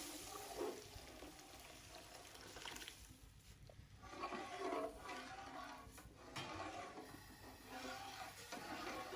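Water poured into browned semolina and hot ghee in a large aluminium pot, faintly bubbling and hissing as a perforated ladle stirs it: the stage where water goes in to turn the roasted semolina into halwa.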